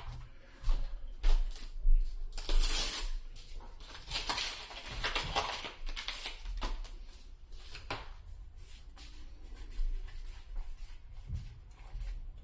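Crinkling and tearing of a foil trading-card booster pack, with cards being handled. A loud crinkling burst comes about two seconds in, and more crinkling follows a couple of seconds later.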